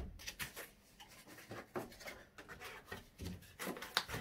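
Small unfinished pine box being handled and its lid fitted back on: a string of light wooden taps and knocks with soft scraping between them, a sharper knock at the start and another near the end.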